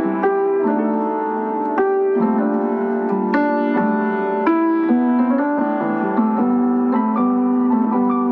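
Piano or electric piano music: chords and melody notes struck in a moderate, steady succession.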